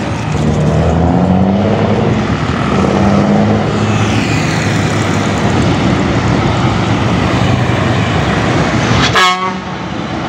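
Heavy diesel trucks passing in a slow procession, their engines running and changing pitch as they pull along, with a short horn toot about nine seconds in.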